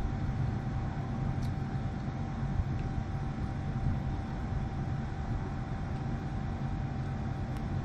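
Steady low rumble of background machine noise with a thin constant hum above it, and a couple of faint clicks.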